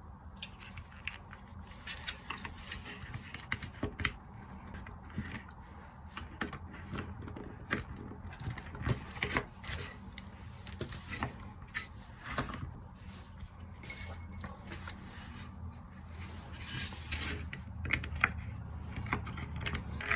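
Irregular small clicks, taps and scrapes of plastic parts and a small screwdriver being handled while a cheap plug-in LED night light is taken apart.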